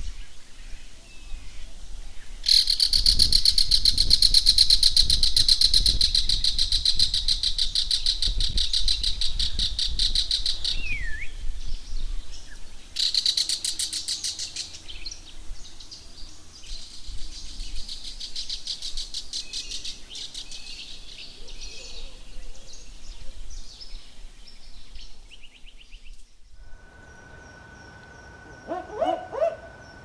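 Wild bush calls: a loud, very fast-pulsing high buzzing call runs from about two seconds in to about eleven seconds, then comes back more weakly from about thirteen to twenty-one seconds. Near the end, after an abrupt change in the background, two or three short low barking 'woof' notes of a barking owl.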